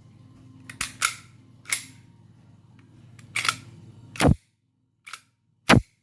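E&C G18c gas blowback airsoft pistol firing single shots: a string of sharp cracks at irregular intervals, some in quick pairs, the two loudest near the end.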